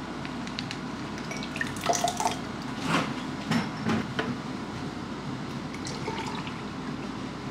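Small clicks and knocks of a plastic pouch being cut with scissors and emptied into a glass tumbler, then milk poured from a carton into the glass, a steady pouring sound through the second half.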